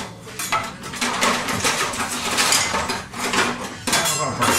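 Metal cutlery and kitchen utensils clattering and clinking as a kitchen drawer is rummaged through, in an irregular run of rattles.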